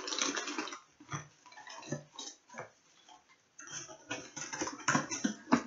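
Cardboard and packaging being handled: irregular rustling, scraping and crinkling with scattered sharp knocks and clicks, the sharpest knocks near the end.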